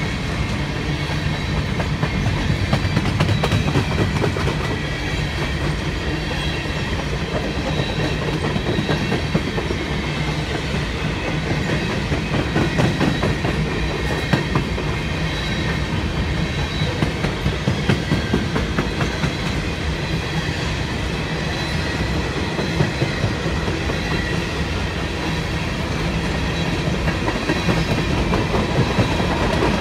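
Coal hopper cars of a freight train rolling past, a steady rumble of steel wheels with repeated clickety-clack over the rail joints. Faint thin high-pitched tones run through it.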